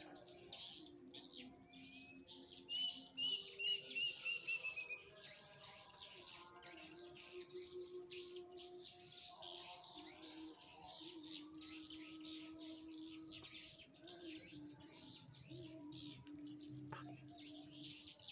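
Swiftlets twittering in dense, rapid high chirps without a break, with a short trill of separate notes about two to five seconds in and low steady tones underneath.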